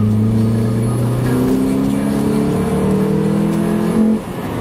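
Honda Civic FA1's 1.8-litre four-cylinder engine accelerating, heard from inside the cabin, its pitch climbing steadily. About four seconds in the level dips and the pitch drops as it shifts up a gear.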